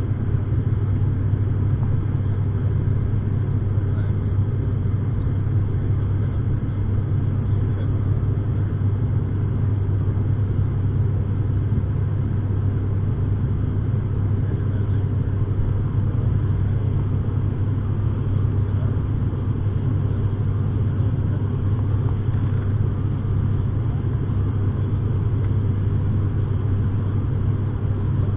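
Cabin noise of an ATR 72 climbing after take-off: its twin turboprop engines and propellers make a steady low drone, with a hiss of airflow above it.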